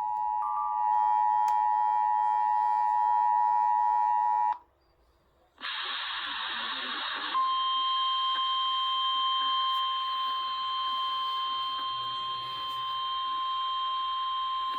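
Emergency Alert System two-tone attention signal, a steady dual tone that cuts off about four and a half seconds in. After a second of silence comes a short burst of radio static, then the NOAA Weather Radio single-tone 1050 Hz warning alarm, held steadily over hiss, signalling an imminent tornado warning.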